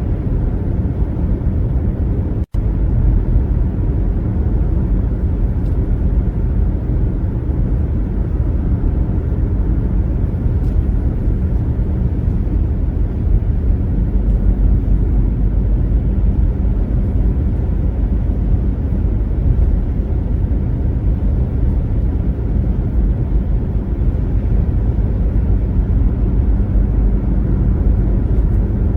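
Car driving on a highway: a steady, low rumble of road and engine noise. The sound cuts out for an instant about two and a half seconds in.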